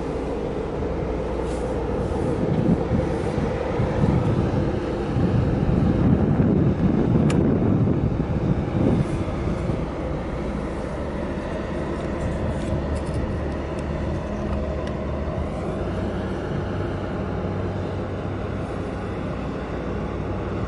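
Low, steady engine rumble of a large bulk carrier passing close by. It swells louder for several seconds early on, then settles to an even drone.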